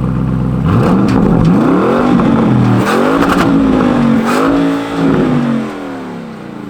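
Porsche Cayenne GTS's 4.0-litre twin-turbo V8 through its stock sport exhaust, revving up and down several times, with a few short sharp cracks between the revs. It dies away near the end.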